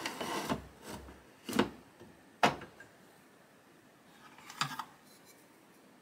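The plastic drip tray of a DeLonghi ECAM coffee machine, with its stainless grille, sliding into the machine: a short scraping slide, then two sharp knocks about a second apart, and a brief clatter of clicks near the end.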